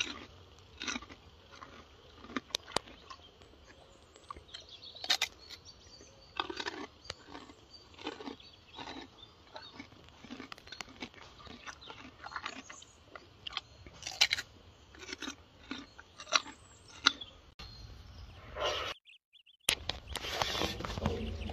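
A gorilla chewing and crunching food close to the microphone, with irregular sharp crunches and smacks. Near the end, after a short gap, a denser, louder stretch of crunching noise follows.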